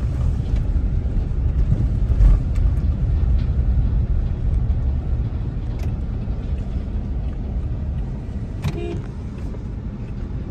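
Car cabin road noise while driving: a steady low rumble of engine and tyres on a rough road, with a thump about two seconds in.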